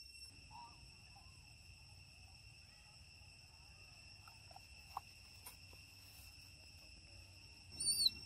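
Steady high-pitched drone of insects in the forest, with a couple of faint clicks in the middle. Near the end comes one short, high-pitched chirp that rises and falls.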